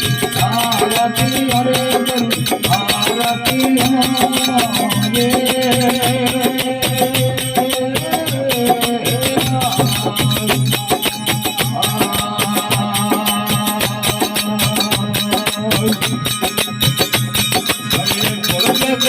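Indian folk devotional music: a held, gently bending melody over fast, steady percussion with a rattling, jingling shimmer.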